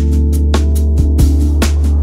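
Electronic background music with a heavy bass and a steady drum beat, about two hits a second; a rising sweep comes in near the end.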